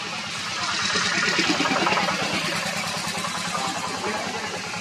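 A motor vehicle's engine running steadily, swelling louder about a second in and easing off again.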